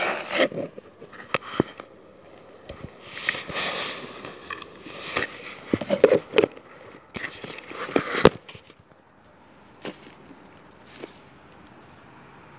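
Close handling noise: bursts of crackling rustle with several sharp knocks and clicks, settling down for the last few seconds.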